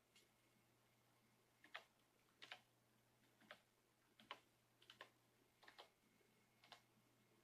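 Faint, slow keystrokes on a computer keyboard, about one a second and some in quick pairs, as a single word is typed letter by letter.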